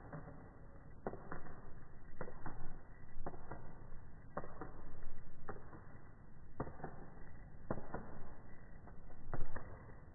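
Turkish Takla pigeon's wings clapping: sharp knocks about once a second, often in quick pairs, the characteristic knock of the breed.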